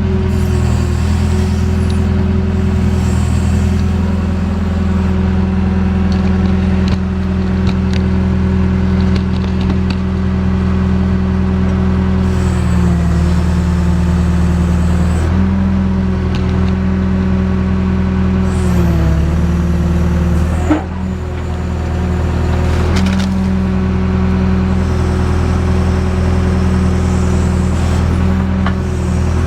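JCB backhoe's diesel engine running steadily at working revs, its pitch dipping briefly several times as it takes load, with a couple of sharp knocks a little after the middle.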